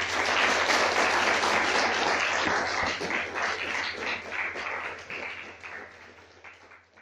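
Audience applauding, full and steady at first, then thinning out over the last two seconds or so into a few scattered claps.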